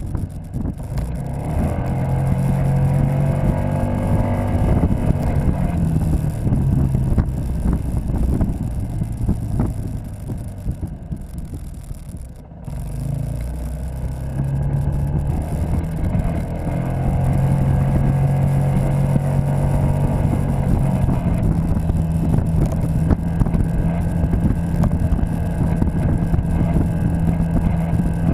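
Citycom scooter's engine running under way, with wind on the microphone. The engine note rises as it pulls away about two seconds in and again around fifteen seconds, and drops lower near the middle as the scooter slows.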